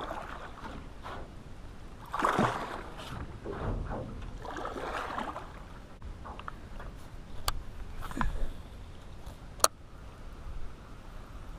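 Wooden paddle stroking through pond water beside a small flat-bottomed boat, several swishes and sloshes. Later come a few sharp knocks, the loudest about ten seconds in.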